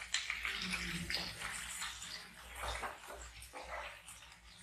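Chopped onions, capsicum and green chillies sizzling in oil in a nonstick kadai, stirred with a spatula that scrapes across the pan in repeated strokes.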